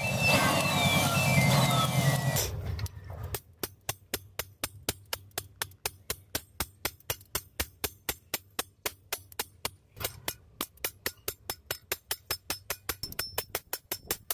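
Hand hammer striking a rusty steel sword blade on a round steel block, sharp metal-on-metal blows at a steady pace of about three a second, with a brief pause near ten seconds. The first two seconds or so hold a louder steady sound with shifting tones that stops before the hammering begins.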